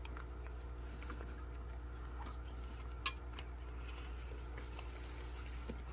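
Quiet room with a faint steady low hum and a few soft ticks; about three seconds in, a single sharp clink of a spoon set down on a ceramic plate.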